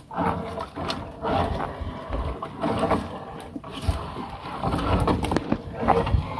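Gill net being hauled aboard a small fishing boat: water splashing and sloshing, with scattered knocks of the net and catch against the boat.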